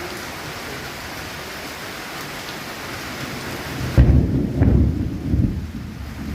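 Steady heavy rain. About four seconds in, a sudden loud rumble of thunder breaks in and rolls on in several surges, and the rain's high hiss drops away.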